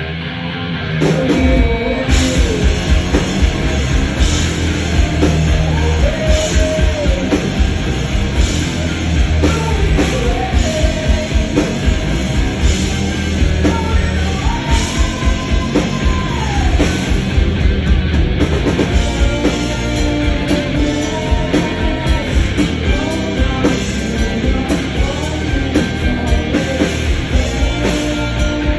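Live rock band playing loud: distorted electric guitar, bass and drum kit on a steady beat, with a male lead vocal that comes in about a second in.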